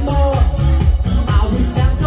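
Upbeat dance music with a steady beat and heavy bass.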